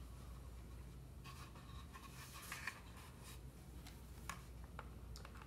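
Faint handling noise of a small screwdriver and a plastic GPS unit on a workbench: a light scratchy rubbing for a couple of seconds, then a few small clicks.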